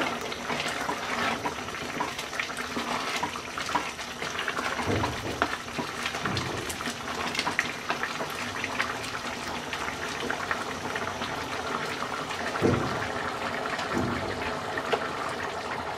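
Pot of broken rice and vegetables boiling hard in water, a steady dense bubbling and spluttering, stirred now and then with a wooden spatula. A few soft low thumps come through it.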